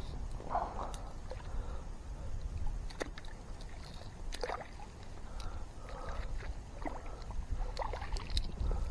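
Water lapping and sloshing around a kayak, with a few small knocks and clicks from handling on board, over a steady low rumble.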